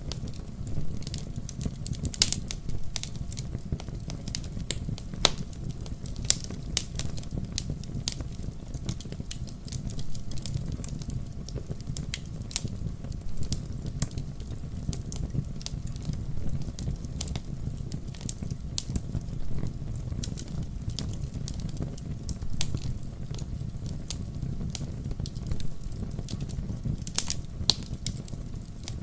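Wood fire burning in a fireplace: a steady low rumble of flames with frequent irregular crackles and sharp pops from the burning logs.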